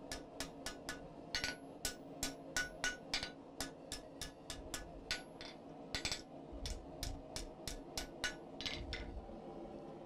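Ball-pein hand hammer striking red-hot round bar on the anvil in a quick, even rhythm of about three blows a second, starting the bend of the eye. The blows stop about a second before the end.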